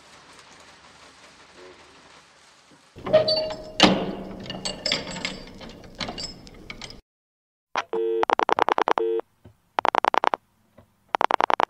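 A few seconds of knocks and clatter, with one sharp loud knock, then an abrupt cut to a telephone ringing in short buzzing bursts with gaps between them, starting about eight seconds in.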